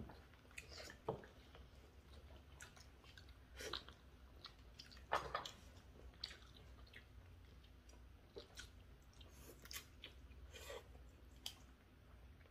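Faint eating sounds at the table: chewing and biting of braised chicken and glass noodles, with scattered short mouth smacks and light clicks, a few of them louder.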